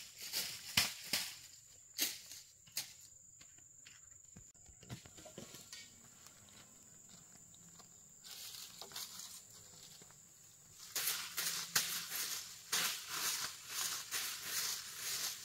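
A broom sweeping dry leaves and dirt, in a quick run of scratchy strokes from about two-thirds of the way through. Before that, scattered light taps and rustles.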